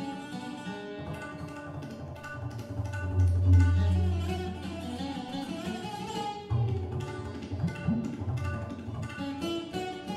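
Live Indian raga–jazz fusion in raga Yaman: a chaturangui (Hindustani slide guitar) plays gliding melodic phrases over the group. Tabla strokes, with deep bass tones, come in more densely past the middle.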